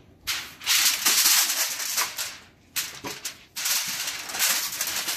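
Aluminium foil crinkling and rustling as a rack of ribs is laid on it and pressed down by hand, in two spells with a short lull between.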